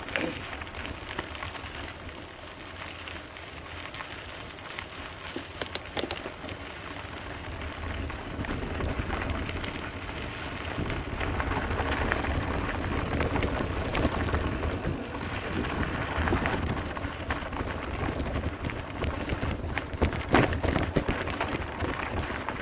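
Mountain bike rolling along a dirt trail: tyres crackling over grit and stones, with a low rumble. It gets louder from about eight seconds in, with a few sharp clicks along the way.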